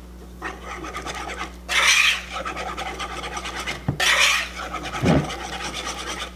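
Wire whisk beating biscuit mix and milk into a batter in a mixing bowl: fast, rhythmic scraping and clicking against the bowl, with louder spells about two seconds in and again at four.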